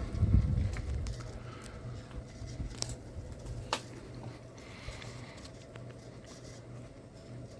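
Harbor Breeze Alaska 42-inch ceiling fan running, with a steady low motor hum. Its airflow buffets the microphone for about the first second. Two sharp ticks come about a second apart near the middle.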